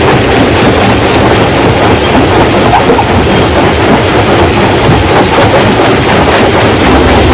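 Rock crusher running, with a loud, continuous clatter and grinding of stones being broken. A steady engine hum comes up near the end.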